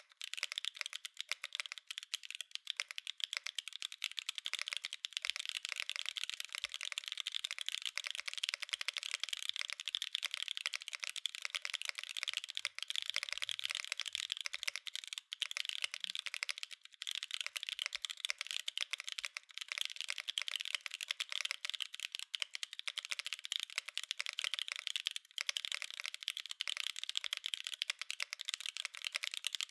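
Mode Encore mechanical keyboard with Tomorrow Tactile switches on a POM plate, in a wave-spring Crown mount with no foam, typed on steadily: a dense, unbroken run of keystroke clacks with no pauses.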